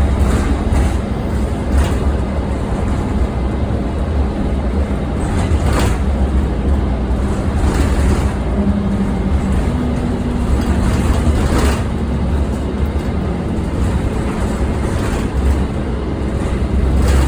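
Inside an Orion diesel city bus under way: steady low engine rumble with a hum that shifts in pitch a few times, over the bus's loud cooling-fan noise. A few sharp knocks or rattles come through.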